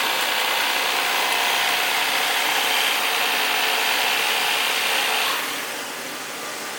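Electric fillet knife running steadily as it cuts through a catfish, then switched off about five seconds in.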